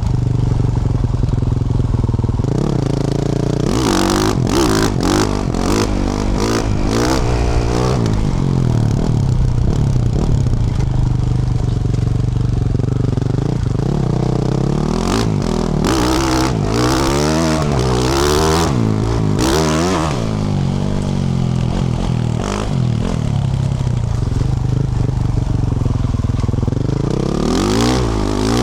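2024 Yamaha YZ450F's single-cylinder four-stroke engine, through a Yoshimura RS-12 exhaust, revving up and down over and over as the bike is ridden off-road, its pitch repeatedly rising and dropping. Clattering and knocks come through, mostly around five seconds in and again around the middle.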